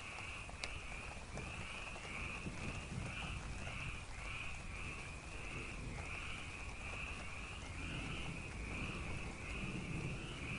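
Steady night rain with a chorus of calling animals, most likely frogs, pulsing evenly at about two calls a second over the hiss of the rain and a low rumble.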